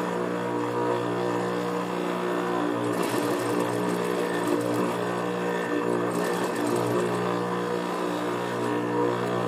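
Juki industrial sewing machine: the motor hums steadily, with short runs of rapid needle stitching about three seconds in and again about six seconds in as suede is fed under the needle.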